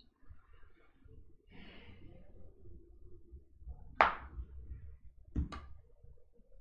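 Quiet room noise broken by a sharp knock about four seconds in, which rings briefly, and a lighter double knock a second and a half later.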